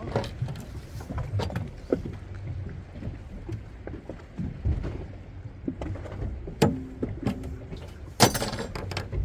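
Small fishing boat: a steady low rumble under scattered knocks and clatter on deck, with one louder, sharper clatter about eight seconds in.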